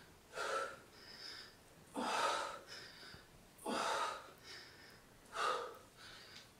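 A woman breathing hard during one-arm dumbbell swings. There are four loud exhales, one about every second and a half to two seconds, keeping time with the swings, with quieter, quicker inhales between them.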